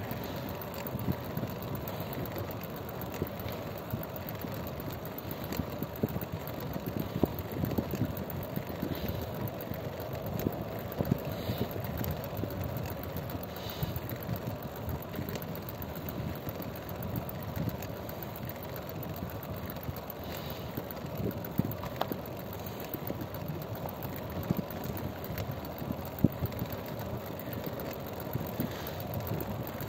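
Vehicle engine running steadily while on the move, under a continuous rush of road and wind noise with scattered small knocks.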